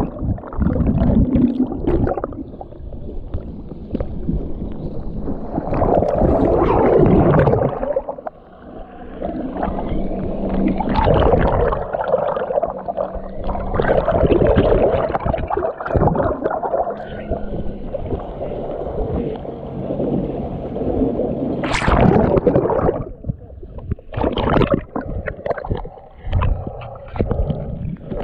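Water heard from below the surface, muffled and dull: rushing water and gurgling bubbles in uneven surges. About 22 seconds in comes a brief brighter splash, then choppy splashing to the end.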